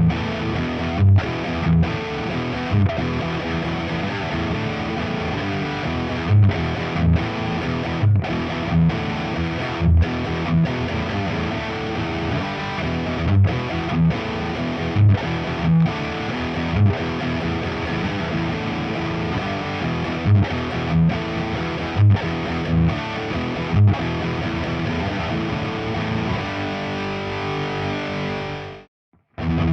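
Distorted electric guitar, a Nik Huber Krautster I with its Haussel pickup through a Diezel VH4 amp and 4x12 cabinet, playing heavy riffs with loud low hits recurring every second or so. The playing breaks off briefly near the end and starts again.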